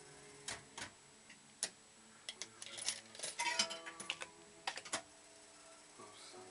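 Star Stepper fruit machine running a game: sharp mechanical clicks as the reels stop, a flurry of clicking with electronic beeping tones in the middle, then the reels set spinning again near the end.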